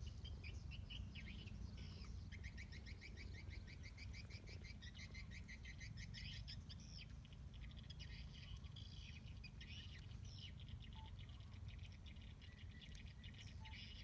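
Faint chirping of small birds, with rapid runs of repeated notes, over a low steady rumble.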